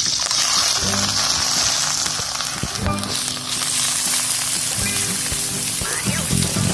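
Spinach, carrot and egg omelette mixture poured into hot oil in a pan: the oil starts sizzling suddenly as the mixture hits it, then keeps frying with a steady hiss.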